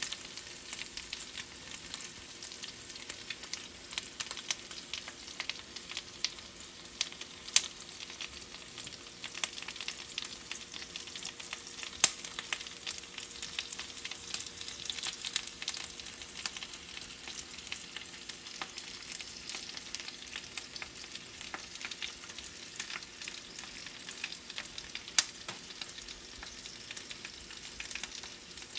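Baked chicken leg quarters sizzling in their hot pan juices: a steady crackle of small pops and spatters, with a few sharper pops spread through, over a faint steady hum.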